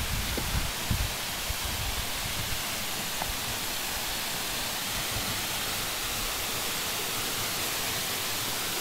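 Steady rush of falling water from a waterfall, an even hiss with no change. A few low knocks sound in the first second.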